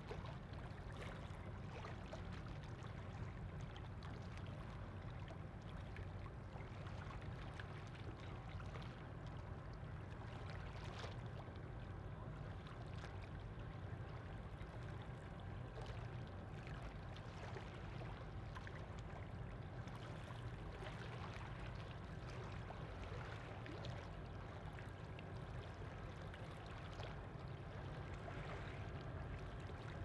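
Steady low rumble of a ship's engine running over the water, with a faint steady hum above it, and small irregular splashes of water lapping.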